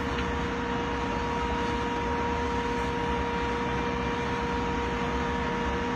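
Mobile crane's diesel engine running steadily during a lift, a constant drone with a steady whine over it.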